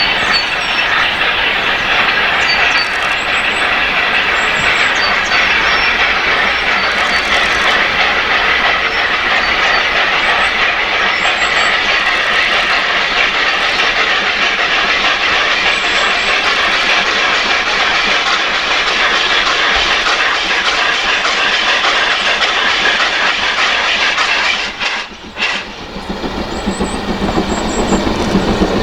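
A train passing close by: carriage wheels clattering over the rail joints with a steady rushing rumble. About 25 seconds in the sound drops away briefly, then comes back deeper.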